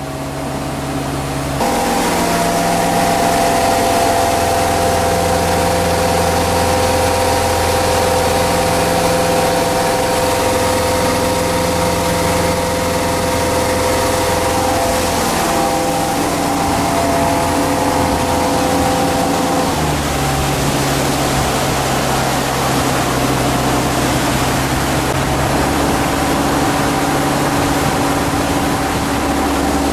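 The rebuilt engine of a 1973 Caravelle cuddy-cabin fishing boat running steadily under way, heard from inside the wheelhouse over a steady rushing noise. The engine note changes about two seconds in and again about twenty seconds in.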